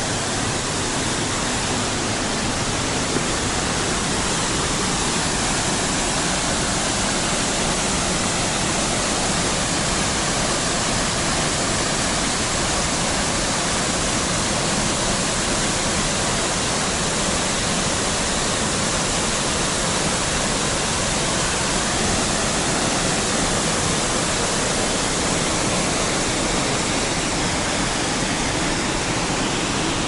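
Ōkama Falls, a waterfall of about 20 m, pouring into its plunge pool: a steady, even rush of falling water.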